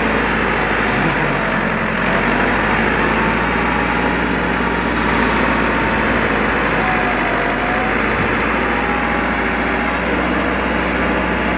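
Massey Ferguson 385 4x4 tractor's four-cylinder diesel engine running steadily under load while it drags a rear land-levelling blade through loose soil.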